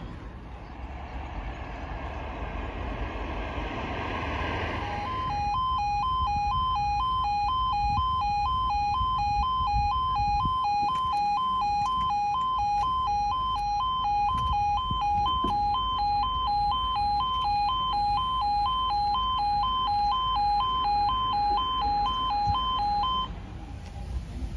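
Road traffic noise for a few seconds, then a level crossing's two-tone warning alarm sounding as a loud, rapid warble that alternates between two pitches. It cuts off about 23 seconds in, once the barriers are down.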